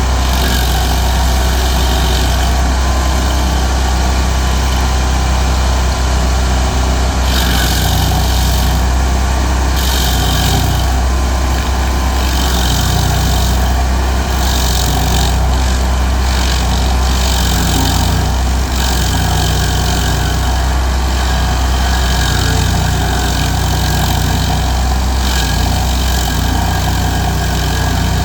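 Stump grinder engine running steadily under load, with repeated bursts of grinding hiss, a second or so each, as the cutter wheel chews into the stump.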